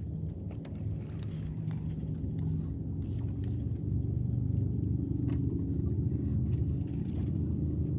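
Outboard motor on a small skiff running at low speed: a steady low hum that grows a little louder about halfway through, with a few light clicks over it.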